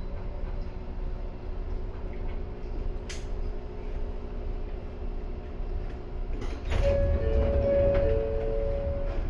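Ryutetsu 5000-series electric train running, heard from the cab: a steady rumble of wheels and motors. About seven seconds in it grows louder, and a high steady squeal is held for about two seconds.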